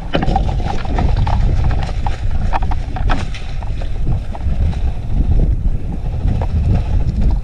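Wind and handling rumble on a moving camera's microphone, with scattered sharp clicks and knocks throughout.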